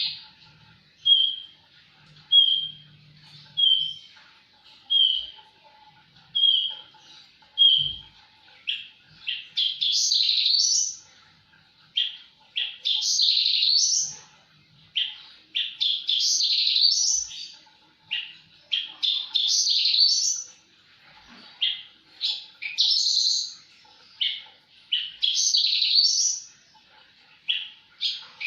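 Javan bush lark (branjangan) in full song. At first it gives a short clear note about every second and a quarter; from about nine seconds in it switches to longer, faster, more complex phrases of one to two seconds each, with short pauses between them.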